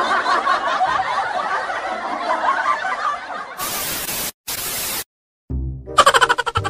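Several people laughing together for about three and a half seconds. Then come two short bursts of static-like hiss, a brief silence, and music with a low beat starting near the end.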